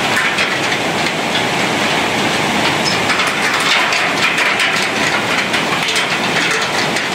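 Hooves of a flock of sheep and goats clattering on the slatted steel deck of a suspension bridge: a dense, continuous patter of small clicks over a steady rushing noise.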